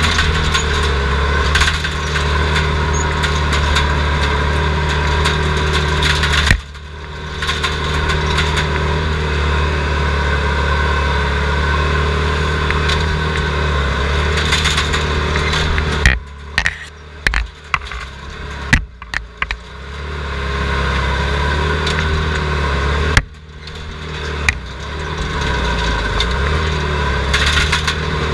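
Skid steer loader's diesel engine running steadily, heard from inside the cab. The level drops suddenly a few times, and a run of sharp clanks and knocks comes between about 16 and 20 seconds in.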